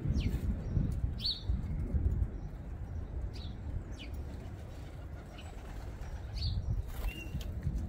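Birds at a garden suet feeder: short high chirps, half a dozen or so, scattered through, over a low rumble.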